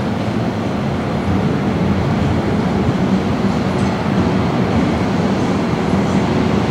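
Vintage Lisbon electric tram running down the street rails, a steady low rumble of wheels and motor that grows a little louder about a second in as it comes closer, with a faint steady hum joining midway.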